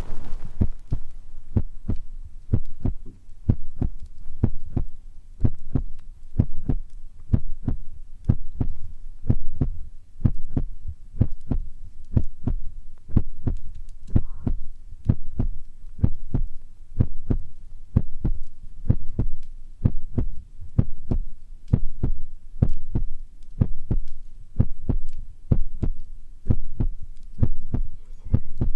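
Soft, steady thumps in a heartbeat rhythm, about a beat a second, heard as a close-miked ASMR trigger sound.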